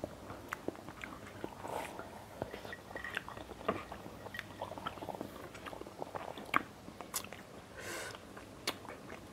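Eating sounds from seblak noodles: chewing and mouth clicks, with two short slurps about two seconds in and near the end, and spoons and forks clicking against the bowls.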